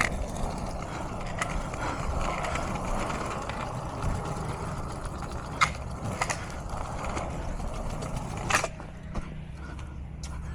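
Footsteps of a person walking outdoors over a steady rumbling noise, with a few sharp clicks and knocks; the rumble drops away about eight and a half seconds in.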